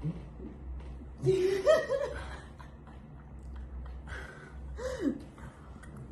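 A person giggling in two short bouts, the first about a second in and the louder, the second near the four-second mark ending on a falling tone.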